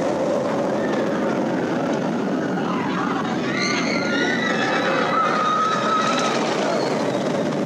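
A Bolliger & Mabillard hyper coaster train running along its steel track, a steady loud roar, with riders screaming in the middle.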